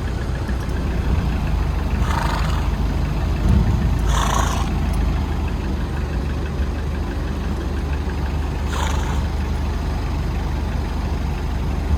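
Pickup truck's engine running with steady road rumble, heard from inside the cab while driving. Three short hissing swishes come about 2, 4 and 9 seconds in.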